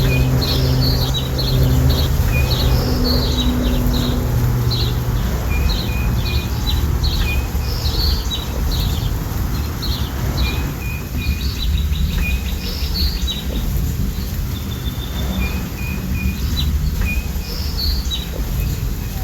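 Many birds chirping and singing in short repeated calls over a steady low rush of falling water, with a faint insect trill. A low steady hum sits under it for the first few seconds.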